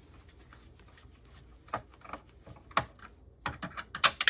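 Scattered sharp clicks and taps of a screwdriver and of metal and plastic parts being handled while an LCD monitor is taken apart, a few single clicks and then a quick cluster of clicks near the end.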